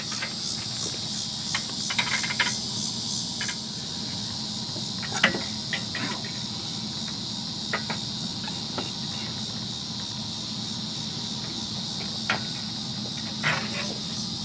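Steady high-pitched chorus of insects with a fine, even pulse. A few short knocks and clicks stand out over it, the loudest about five seconds in.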